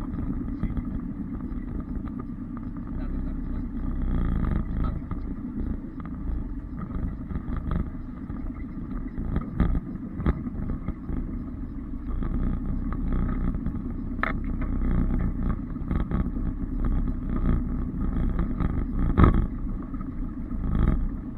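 Off-road 4x4's engine running steadily at low revs while working along a rough track, with occasional sharp knocks and bangs, the loudest about nineteen seconds in.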